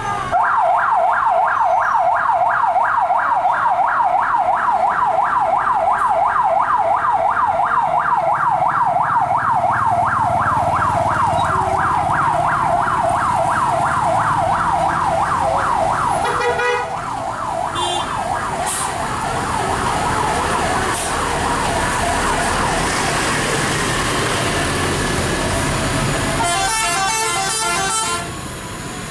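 A fast siren-style warble, several sweeps a second, sounds for about sixteen seconds among passing tour buses. Bus engines run underneath, and near the end a multi-tone telolet bus horn plays a quick stepped melody.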